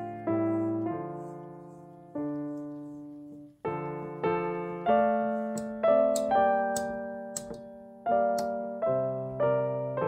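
Background solo piano music: a slow tune of chords and notes, each struck and left to fade.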